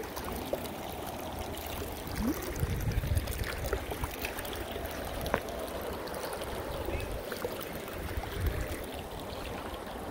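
Kern River rushing steadily over rocks and rapids. Now and then gusts of wind buffet the microphone.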